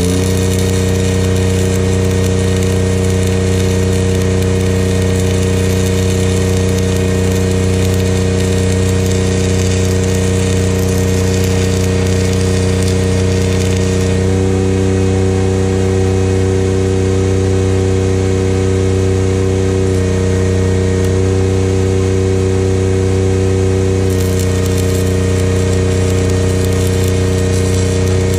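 Arc welding on steel: the steady crackling hiss of the welding arc over the loud, even drone of an engine-driven welder's engine held at welding speed.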